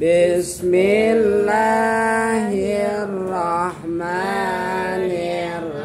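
A voice chanting Quranic recitation in long, drawn-out melodic phrases, the held notes wavering in pitch, with brief breaks between phrases.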